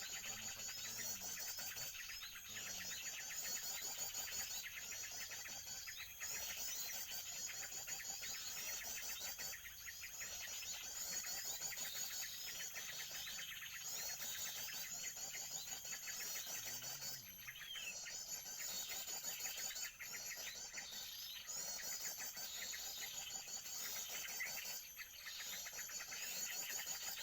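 Dense, high-pitched bird chirping that goes on without let-up, broken by short pauses every three to four seconds.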